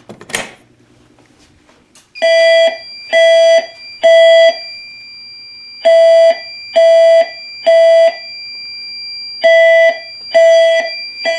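Fire alarm system set off from a pull station: a sharp clack at the start, then about two seconds in the horns begin sounding the temporal-three evacuation pattern, three short blasts, a pause, three more, over a steady high-pitched tone.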